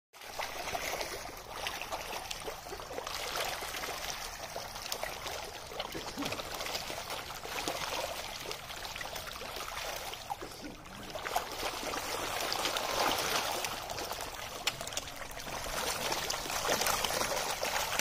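A dense crowd of koi thrashing at the water surface in a feeding frenzy: continuous watery splashing with many small slaps and drips.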